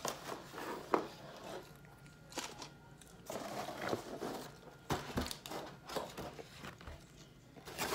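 Close-up chewing and crunching of fried food, with scattered clicks and rustles of handling. A toddler makes faint sounds in the background.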